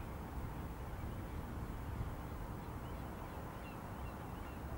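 Outdoor waterside ambience: a steady low rumbling noise, mostly wind buffeting the microphone, with a few faint short bird chirps about three to four seconds in.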